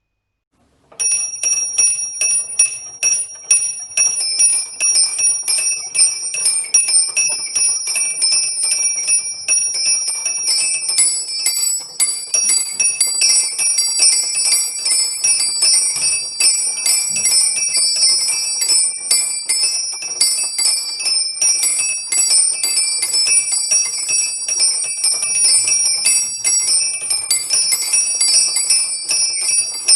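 Small bells of a home-made personal bell tower rung in a fast, continuous peal (scampanio), starting about a second in. The strikes come many times a second, with high, not very well-tuned ringing tones that change as different bells join in.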